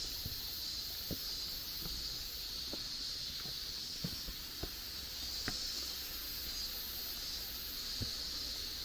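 Footsteps on a wet mountain trail, a soft irregular tread, over a steady high-pitched hiss that pulses gently.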